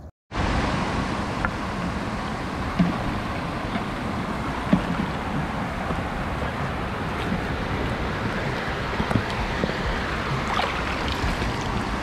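Steady rush of shallow river water, starting abruptly just after a moment's gap, with a few light knocks about three and five seconds in.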